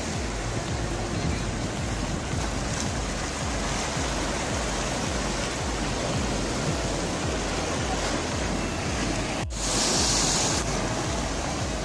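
Sea waves breaking and washing over shoreline rocks, a steady rush of surf. About nine and a half seconds in, the sound drops out for an instant, then comes a louder, hissier splash of a wave running over the rocks that lasts about a second.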